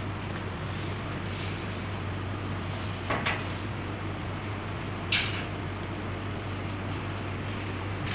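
A steady low hum, with two short knocks or clatters, one about three seconds in and a sharper one about five seconds in.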